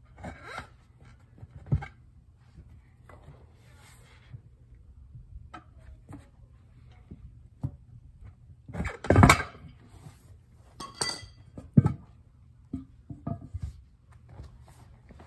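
Scattered knocks, clinks and thuds of objects being handled, over a faint low hum. The loudest is a short cluster about nine seconds in, followed by sharp knocks near eleven and twelve seconds.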